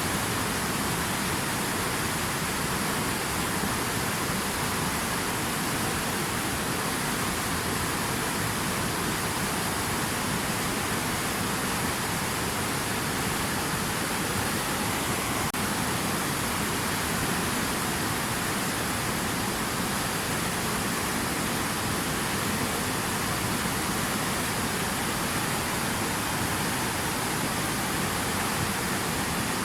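Steady rushing water, an even unbroken hiss that holds at the same level throughout.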